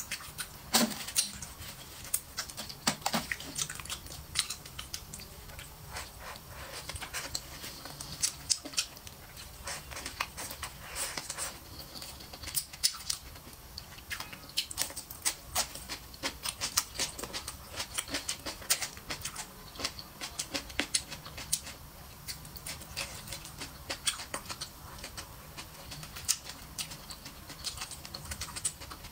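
Eating sounds: chewing and lip-smacking on stir-fried duck and green chili peppers, an irregular, continuous run of small wet clicks and crunches.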